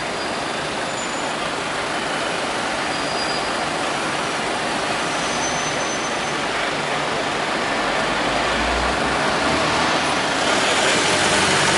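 Road traffic noise: a steady hiss of passing vehicles, growing louder with a low rumble toward the end.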